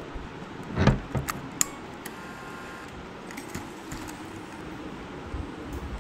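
Sony camcorder being picked up and handled: a knock about a second in, then several sharp clicks as it is lifted and turned over with its strap rattling, followed by quieter handling.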